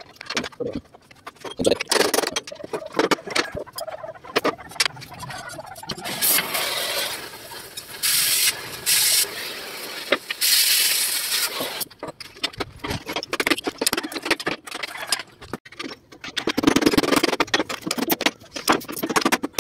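Hand tools and bolts clinking and tapping on a steel truck chassis rail, a run of short sharp knocks. In the middle, for about six seconds, a loud hiss of gas or air comes in several surges.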